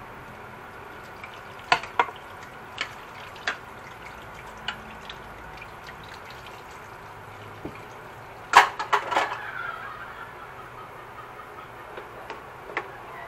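Chopped onions, tomatoes and chili leaves sizzling softly in olive oil in a frying pan, with scattered clicks and knocks. A sharp clatter of knocks comes about eight and a half seconds in, followed by a brief ringing.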